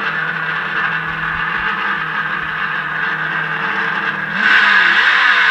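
Traxxas On Board Audio speakers in an RC truck playing a simulated engine idle, then a rev that rises and falls about four seconds in and is the loudest part.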